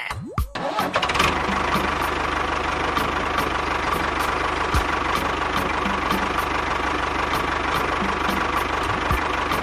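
A small motor starts up about a second in and then runs steadily, with a light tick repeating two or three times a second.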